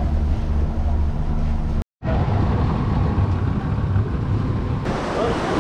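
Outboard motor of a small open fishing boat running steadily with water rushing past the hull. The sound cuts out for an instant about two seconds in, and after that the motor is rougher and mixed with water splashing.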